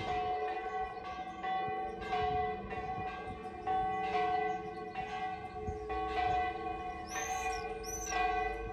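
Church bells ringing, several bells struck one after another with their tones overlapping and ringing on. Two short high chirps come near the end.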